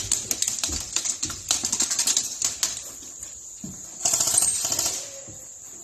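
Airsoft guns firing in rapid clicking runs of shots, with a second, louder burst about four seconds in.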